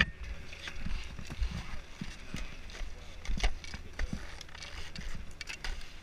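Skis and ski poles knocking and scraping on packed snow as a skier shuffles in place: scattered, irregular light clicks and knocks over a low, steady rumble.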